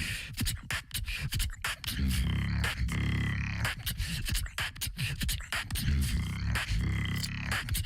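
Beatboxer performing a rhythmic pattern. Held, deep buzzing bass tones alternate with quick runs of sharp mouth clicks and snares, and the cycle repeats every couple of seconds.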